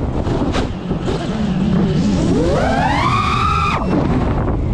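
5-inch FPV quadcopter's brushless motors whining. The pitch climbs over about a second as the throttle is punched, holds briefly, then cuts off abruptly near the end as the throttle drops. A steady low rumble of wind and prop wash runs underneath.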